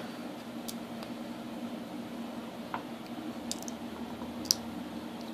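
A few light, sharp clicks of a thin metal can being dented and creased with a knife blade, the sharpest near the end, over a steady low hum.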